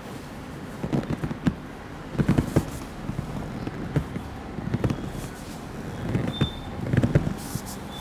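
A barber's hands slapping and tapping in a massage, in short bursts of quick strikes repeated every second or so.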